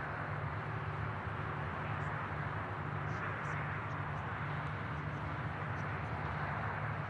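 Steady outdoor ambience at a rocket launch pad: an even hiss with a low hum underneath that fades and returns.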